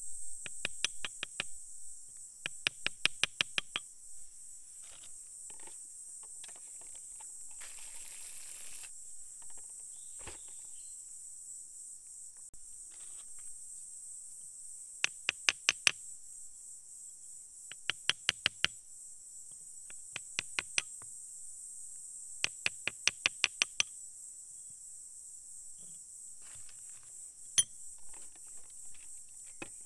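A small pointed metal tool tapping a hand-held stone in short runs of quick, sharp clicks, several runs with pauses between them and a single tap near the end. A steady high chirring of insects runs underneath.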